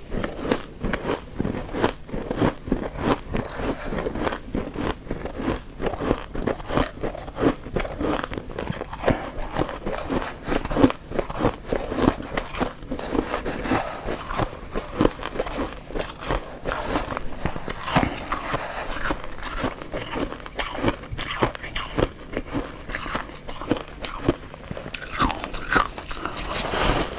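Close-up crunching of freezer frost, bitten and chewed in quick, repeated bites and scooped from a box with a spoon.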